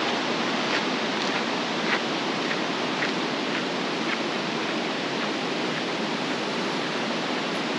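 A mountain creek rushing steadily: an even hiss of flowing water that does not let up.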